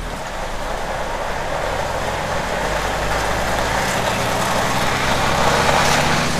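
HGV's diesel engine pulling the truck round slowly at low speed, heard inside the cab; the engine note rises a little and grows louder as it pulls.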